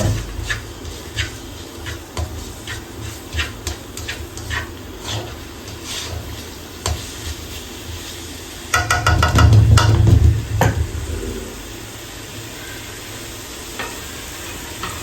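Chopped onions and cumin seeds sizzling in hot oil in a frying pan, with a spatula stirring and tapping against the pan. About nine seconds in there is a louder clatter for about two seconds, after which the pan sizzles steadily.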